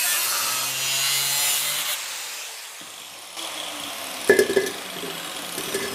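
Angle grinder's abrasive disc cutting through the thin steel wall of an empty gas bottle, then the grinder switched off and spinning down after about two seconds. About four seconds in, a ringing metallic clank and lighter knocks as the cut steel bottle halves are pulled apart.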